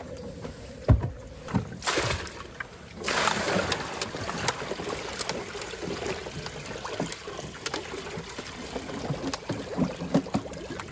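Water being poured, a steady splashing rush that sets in about three seconds in, with scattered knocks and clunks through it.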